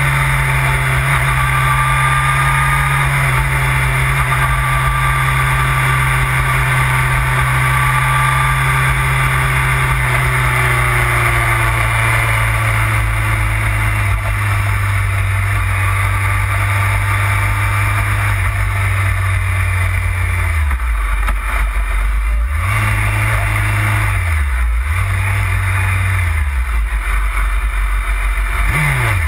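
BMW sport motorcycle engine heard from an onboard camera over steady wind rush. The engine note sinks slowly as the bike rolls off and slows, falls to a low idle about twenty seconds in, rises briefly twice, and gives a quick rev near the end.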